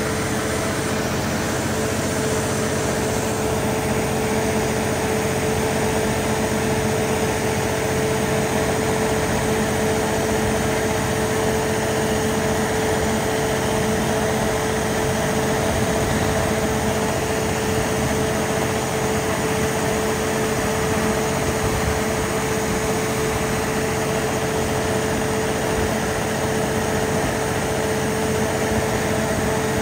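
Cummins NTA-855-G3 turbocharged inline-six diesel engine of a 350 kW standby generator set running at a constant speed: a steady, unchanging drone with a held tone in it.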